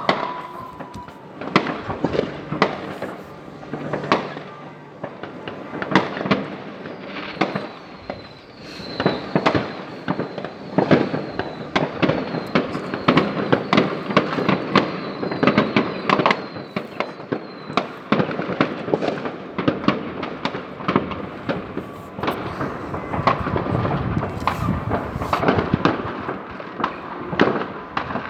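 New Year's Eve fireworks going off thick and fast: a continuous run of bangs and crackles. A string of short high whistles, each falling in pitch, repeats through the middle of the stretch.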